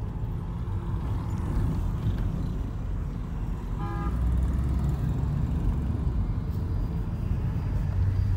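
Road noise inside a moving car: a steady low rumble of engine and tyres. A short vehicle horn toot sounds about four seconds in, and the rumble grows louder just after it.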